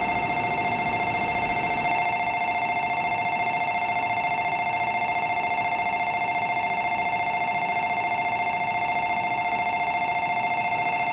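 Electronic platform departure bell ringing continuously in a fast, steady trill on two close tones, signalling that the shinkansen is about to depart.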